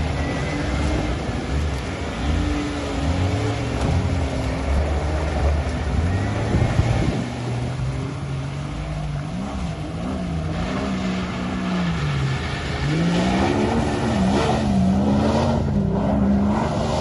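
4x4 truck engine revving, climbing and easing off as the truck slides through mud; in the second half the pitch swings up and down over and over.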